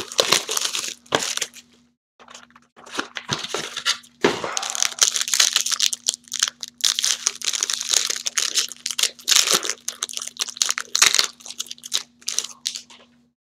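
A trading card box being opened, with a few knocks and clicks. Then the plastic wrapper of a card pack is torn open and crinkled as hands work it for several seconds.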